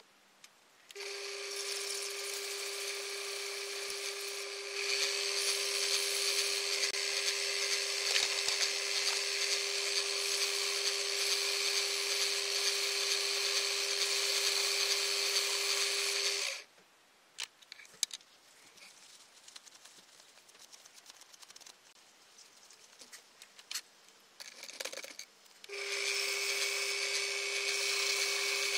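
Benchtop metal lathe starting about a second in and running with a steady whine, louder from about five seconds, while a wooden stick rubs against a glass test tube spinning in the chuck. The lathe stops about two-thirds of the way through, leaving a few clicks and handling sounds, then starts again near the end.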